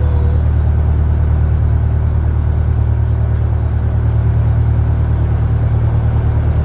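Narrowboat's diesel engine running steadily, a low, even, pulsing drone.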